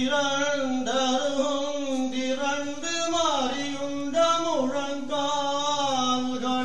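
Solo voice chanting a Tamil devotional verse without accompaniment, in long held notes that glide up and down in pitch.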